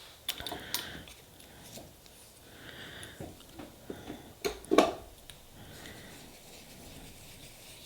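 Light clicks and taps of small nail-stamping tools and polish bottles being handled and set down on a table, loudest about four and a half seconds in.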